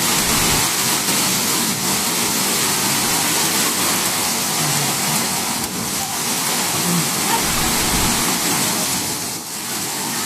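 Steady, loud rushing of a violent storm: strong wind and rain.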